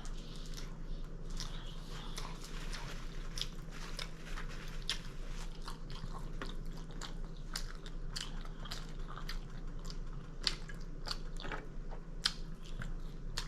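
Close-miked chewing of a mouthful of food, with many small irregular wet mouth clicks over a steady low hum.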